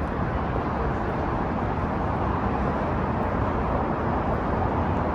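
Wind buffeting a built-in microphone: a steady, dense rumbling rush, heaviest in the low end.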